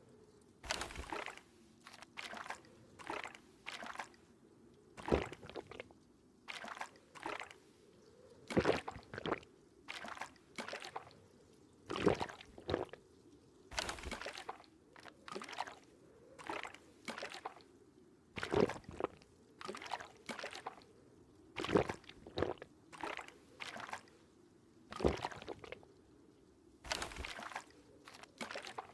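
A person drinking water in a long series of gulps and swallows. They come roughly one a second, each short, with uneven gaps between them.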